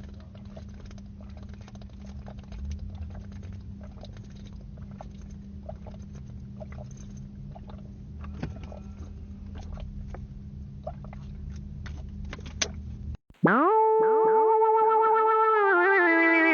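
Close-up eating sounds: chewing with scattered small crunches and clicks over a low steady hum. About thirteen seconds in they cut off and a loud synthesizer sting plays, its notes sliding down and then holding as steady chords.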